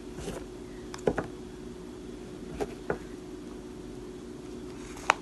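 A few light clicks and taps as a small cardboard watch box holding fake cockroaches is handled and its lid folded shut, the sharpest click near the end, over a steady low hum.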